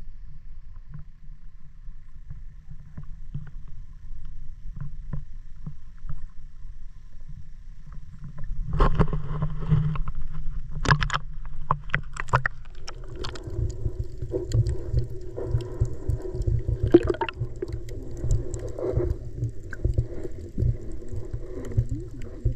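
Seaplane's engines running, a steady drone coming in about halfway through with its pitch wavering slightly, over a low rumble and a few sharp knocks.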